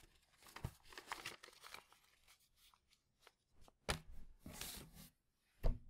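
A paper manual rustling and crinkling as it is handled and set aside, then two sharp knocks of small objects set down on a wooden desk, with more rustling between them.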